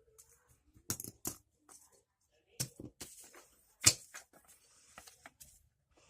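Small hard plastic toy parts clicking and clattering as they are handled and set down: a string of irregular sharp clicks, the loudest a little under four seconds in.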